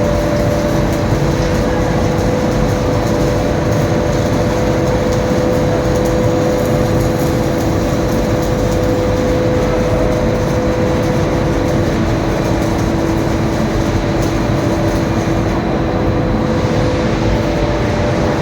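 Steady, loud industrial machinery noise: a continuous roar with a constant two-tone hum running through it.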